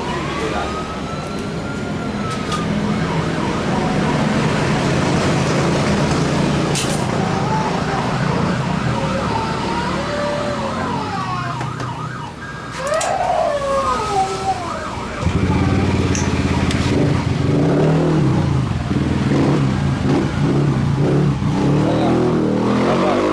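A siren wailing and warbling in wavering tones over a running motor engine. The engine gets suddenly louder about fifteen seconds in.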